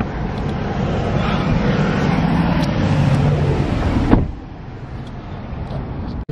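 Car running, with road and engine noise heard inside the cabin. It cuts off abruptly with a short knock about four seconds in, leaving a quieter background.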